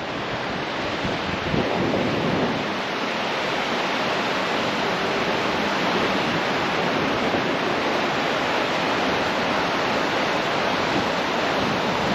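Steady rush of ocean surf washing onto a sandy beach.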